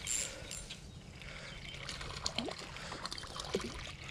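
Water splashing and trickling as a small catfish is reeled in on a light spinning reel, with scattered soft clicks from the reel.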